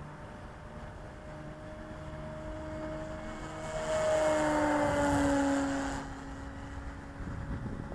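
Electric motor and propeller of a radio-controlled E-flite Cessna 150 model plane humming steadily in flight. About three and a half seconds in it grows louder for two seconds as the plane passes close, its pitch falling slightly, then drops back.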